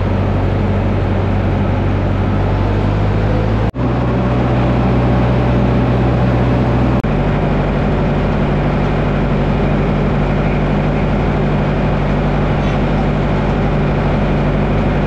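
Tractor engine running steadily, heard in three spliced stretches, its pitch jumping at each splice.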